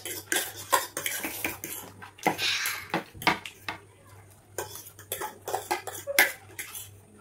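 Forks clinking and scraping against plates in quick, irregular strokes as two people hurry through plates of chow mein, with one longer scrape about two and a half seconds in.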